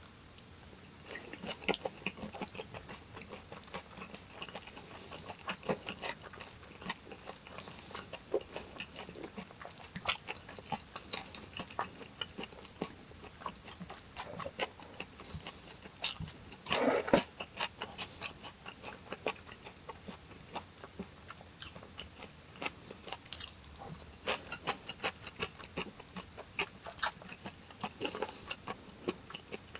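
Close-miked eating of hongeo samhap (fermented skate, boiled pork and aged kimchi): a run of crunchy bites, chewing and wet mouth clicks, with one longer, fuller sound a little past halfway.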